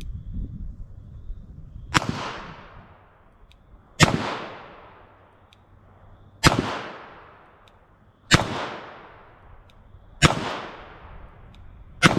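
Revolver fired six times in slow, aimed succession, about two seconds apart, each shot sharp and trailing off in a long echo.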